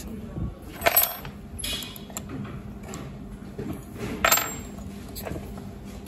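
A few sharp metallic clinks of a steel hex key and small hand tools against the metal block of an air-cylinder wire-stripping unit, each with a brief high ring; the loudest come about a second in and just past four seconds, over a faint steady hum.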